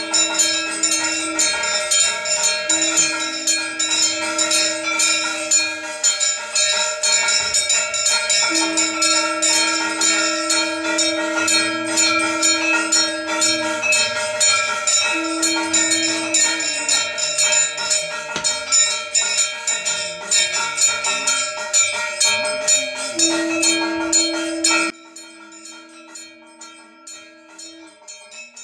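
Puja bells rung rapidly and continuously to accompany the pumpkin sacrifice of a Kali Puja, cutting off suddenly about 25 seconds in. Through it a steady horn-like tone sounds in several long blasts with short breaks.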